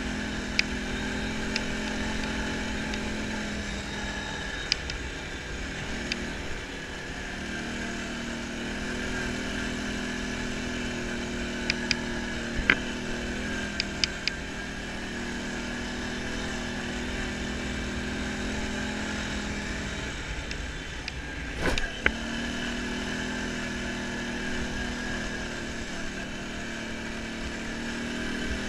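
ATV engine running steadily while riding a gravel dirt trail, its pitch dipping and picking up again as the throttle changes, over a low wind rumble on the microphone. Scattered sharp clicks and a louder knock about three-quarters of the way through.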